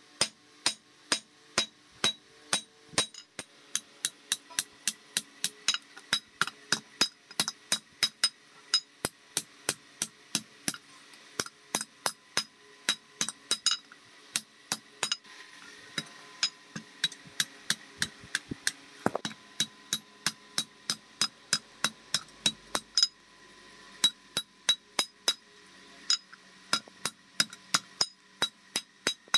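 Hand hammer striking a red-hot steel bike sprocket on an anvil in steady blows, about two or three a second, each with a short metallic ring. The heated sprocket strip is being forged straight into a toothed knife blank.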